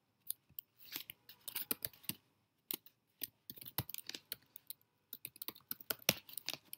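Typing on a computer keyboard: irregular runs of quick keystroke clicks with short pauses between them.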